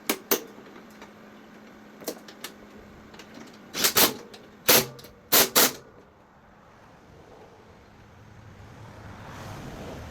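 Knocks and clunks of parts being handled while the seat is fitted to a lawn tractor: a few light clicks, then about five loud, sharp knocks in quick succession around four to six seconds in.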